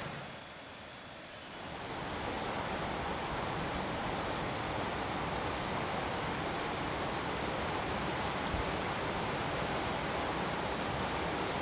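Steady outdoor background hiss, quieter for the first second or so and then even, with a faint high-pitched chirp repeating about once a second.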